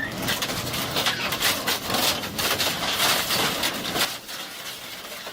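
Wood being broken up in a shredding machine: a dense, irregular crackling and splintering that drops off about four seconds in.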